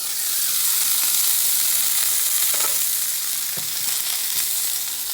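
Prosciutto-wrapped asparagus sizzling in a hot frying pan, a steady hiss that grows louder right at the start, with a couple of faint knocks from turning the spears.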